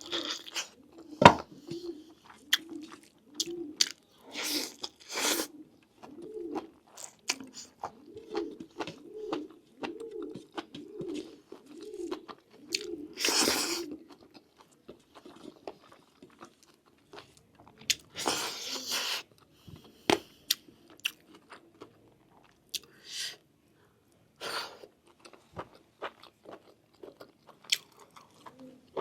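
Close-up chewing of lamb meat off the bone: a steady jaw rhythm of wet mouth sounds about one and a half times a second for the first half, then sparser. Sharp clicks are scattered throughout, with a few louder, longer smacking noises, the loudest about halfway through.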